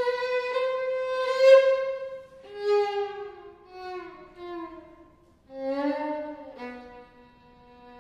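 Violin playing a slow passage: a long held note, then a string of notes sliding downward in pitch, a brief break about five seconds in, and a lower note held near the end.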